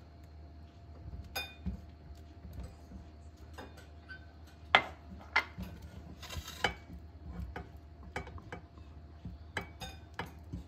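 Silicone spatula scraping and knocking against a stainless steel wok and a glass bowl while sticky syrup is scraped out: scattered clinks and taps, the loudest about five seconds in, over a low steady hum.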